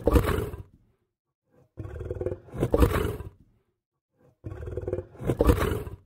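Lion roaring in a regular series: three roars about two and a half seconds apart. Each begins with a lower pitched part and swells into a louder, rougher part.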